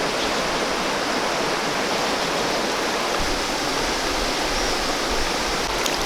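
Steady rush of a rain-swollen river or stream running high after a night of heavy rain.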